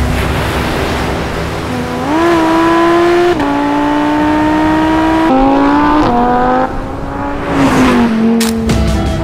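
Lamborghini Huracán Performante Spyder's naturally aspirated 5.2-litre V10 accelerating hard: the revs climb about two seconds in, and upshifts drop the note sharply a couple of times. Near the end a rush of air sweeps past and the engine note falls away.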